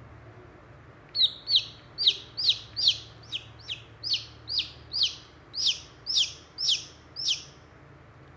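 Newly hatched chick peeping: about fourteen short, high peeps, roughly two a second, each falling in pitch. They start about a second in and stop shortly before the end.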